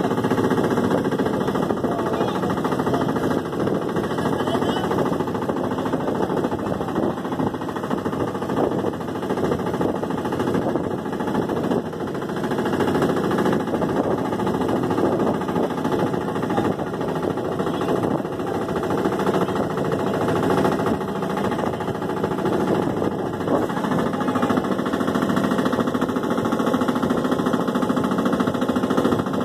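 Motor of a small wooden boat running steadily under way, a continuous even drone with a fast, regular pulse.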